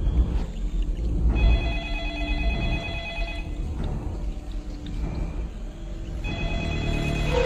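Telephone ringing twice, each ring lasting about two seconds, over a steady low rumble.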